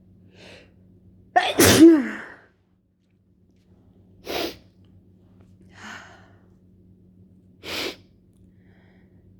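One loud, wet sneeze from a person with a lingering head cold, about a second and a half in, its voiced part falling in pitch. It is followed by short, sharp noisy breaths at about four and a half and eight seconds, with a fainter one between them.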